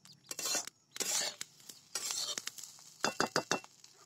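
Steel spatula scraping and stirring rice in a steel kadhai as salt is mixed in: a few swishing scrapes, then a quick run of metal clinks against the pan about three seconds in.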